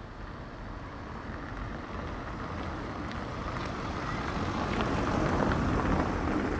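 A vehicle approaching on a wet street, its tyres hissing and growing steadily louder.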